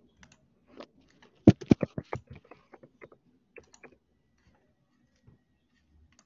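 Computer keyboard and mouse clicks picked up by a computer's microphone: scattered single clicks, with a quick run of about half a dozen louder ones a second and a half in.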